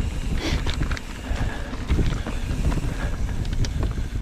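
Mountain bike rolling along a dirt singletrack trail, with wind buffeting the microphone and the bike's chain and frame rattling over bumps in many short clicks.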